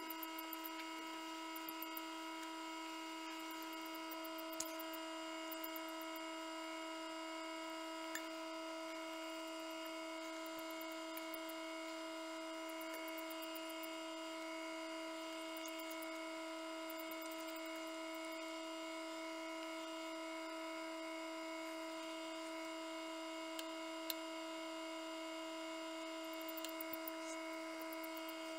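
Egg incubator's fan motor running with a steady electric hum, with a few faint clicks here and there.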